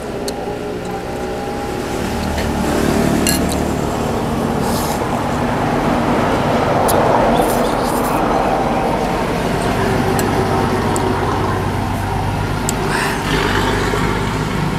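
A passing vehicle, swelling over several seconds and easing off, with a few light clicks of a spoon and chopsticks against a soup bowl and noodles being slurped.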